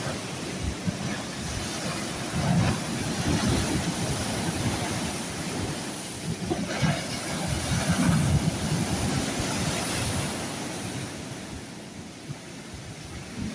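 Sea waves breaking and washing on the shore, with wind buffeting the microphone in uneven low gusts.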